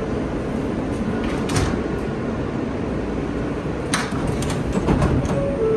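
Subway car standing at a station with its sliding doors open: a steady hum, broken by a few sharp clacks about one and a half and four seconds in.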